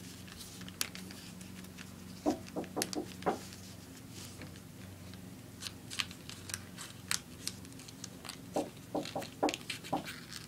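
A sheet of paper being folded, creased and tucked by hand: irregular crisp crinkles and taps, bunched about two seconds in and again in the second half, over a faint steady low hum.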